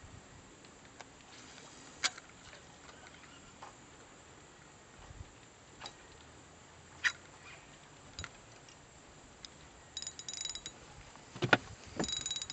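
Faint background with scattered small clicks and knocks, two sharper knocks about eleven and a half seconds in, and two short high-pitched buzzing bursts, one about ten seconds in and one at the end.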